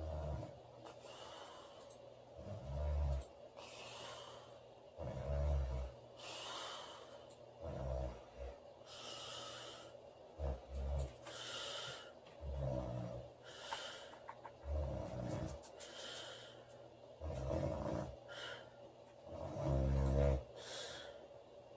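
A girl snoring in her sleep: a low snore about every two and a half seconds, with an airy breath between snores.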